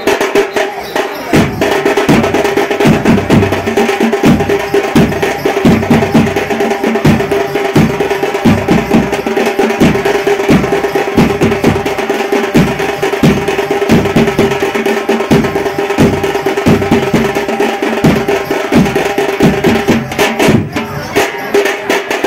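Fast Tamil folk drumming, the music for a Devarattam dance: quick, driving drum strokes over a held steady note.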